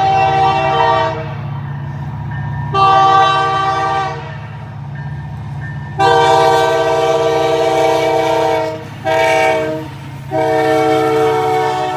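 Multi-chime air horn of the CPKC Holiday Train's diesel locomotive blowing a series of blasts over a steady diesel rumble: long, long, short, long, the grade-crossing signal. An earlier blast fades out about a second in.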